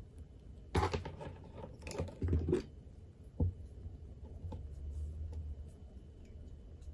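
Unboxing handling sounds: the charging cable and its wrapping rustled and scraped for a couple of seconds about a second in, then a single knock as the white power adapter comes out of the cardboard box, followed by faint handling.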